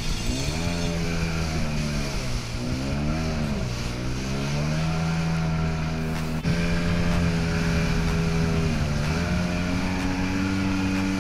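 Jet ski engine running at speed, its pitch dipping and rising with the throttle in the first few seconds, then holding steady and stepping up slightly near the end, over a steady hiss of spray and wind.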